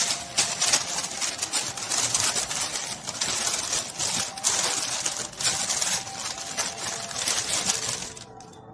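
Parchment paper crinkling as a hand smooths and presses a crossed sheet down into a foil-lined baking tray, a dense crackle of rapid small clicks. It stops suddenly near the end.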